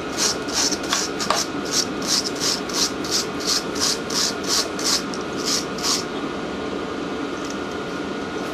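Hand wire brush scrubbing the metal housing of a fuel injector pump in quick back-and-forth strokes, about two or three a second, stopping about six seconds in. Under it runs the steady fan hum of a diesel warm-air heater.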